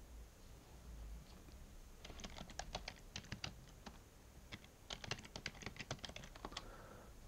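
Faint computer keyboard typing, in two quick runs of keystrokes: the first starts about two seconds in, the second about five seconds in.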